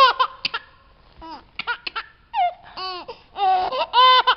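A very high-pitched, baby-like voice laughing and babbling in short calls that glide up and down in pitch, starting suddenly out of silence.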